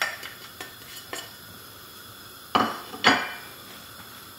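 Spatula clicking and scraping against a plate and a non-stick frying pan as ground spices are knocked into the pan, a few light taps followed by two louder clinks with a short ring, about half a second apart.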